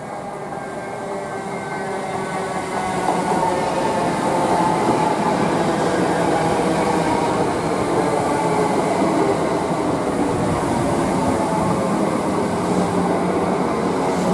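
Greater Anglia Class 379 Electrostar electric multiple unit running along the platform. It grows louder over the first three seconds as it nears, then keeps up a steady rush of wheels on rail with a faint whine over it.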